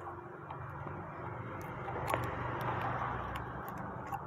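Small sharp metal clicks and scrapes of a thin pointed tool prying the inner cap out of a bicycle freewheel, the loudest click about two seconds in, over a steady low background hum.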